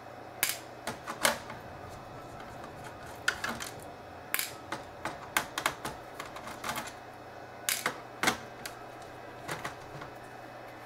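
Irregular sharp clicks and taps from a hand screwdriver working screws out of a Samsung NP355V5C laptop's plastic base, and from the small screws being handled; a few louder clicks stand out among softer ones.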